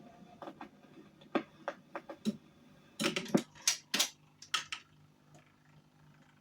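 A series of irregular mechanical clicks and knocks, a cluster of louder ones about three seconds in, typical of a gramophone being handled and stopped once a 78 rpm record has finished playing.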